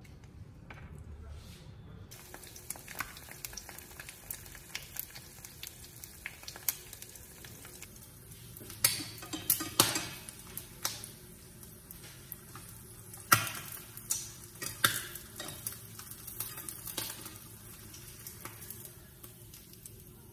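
Irregular small clicks and clatter throughout, with a cluster of sharper, louder knocks in the middle.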